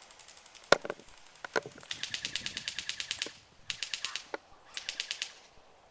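Airsoft electric guns firing on full auto: three rapid rattling bursts of evenly spaced shots, the first the longest at about a second and a half. A sharp single crack comes just before them, the loudest sound.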